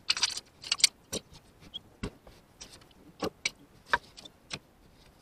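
Hands rummaging among small loose items on the floor and console of a pickup truck's cab: an irregular string of sharp clicks, knocks and short scrapes, busiest in the first second.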